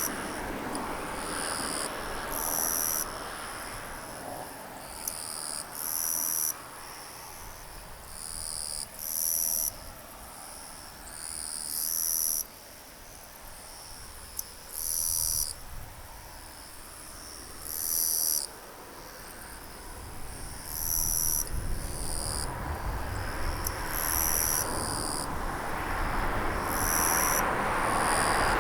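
Insects chirping in short, high-pitched bursts every couple of seconds, over a low rushing background that swells again in the last third.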